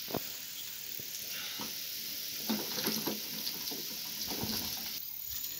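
Faint rustling and scuffing in dry grass and leaf litter as a hand searches through it, with a few soft knocks, over a steady high hiss.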